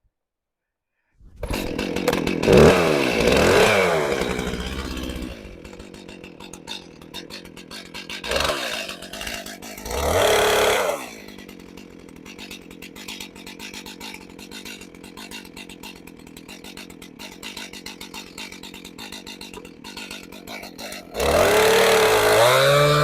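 Two-stroke chainsaw starting about a second in and running at high revs for a few seconds, then idling with a steady ticking beat, blipped twice in between. It revs up loud again near the end.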